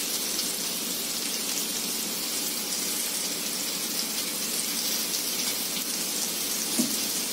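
Chopped onion, carrot, beans and cabbage sizzling steadily in hot oil in a kadai on high flame: an even hiss with faint crackles.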